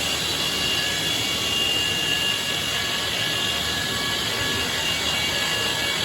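Band sawmill running steadily, its blade cutting through a red oak log: a constant noise with a thin high whine held over it.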